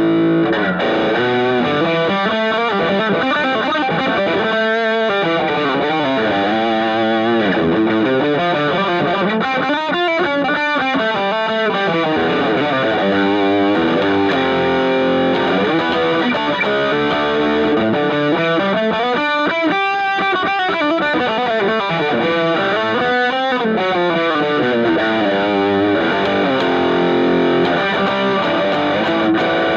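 Fernandes TEJ Telecaster-style electric guitar strummed and picked through distortion. A slowly sweeping effect rises and falls through the chords.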